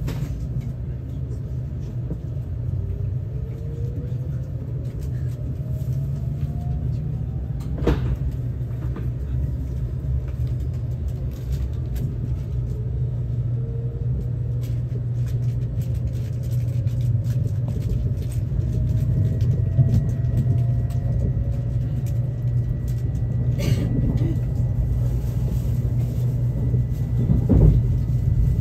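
JR Central N700S Shinkansen car interior: the steady low rumble of the running train, with a faint motor whine slowly rising in pitch as the train gathers speed. Two short sharp knocks, one about a quarter of the way in and one near the end.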